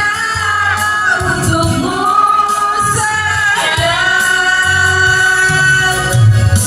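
Music with singing: a voice holding long, slightly wavering notes over an intermittent low bass beat.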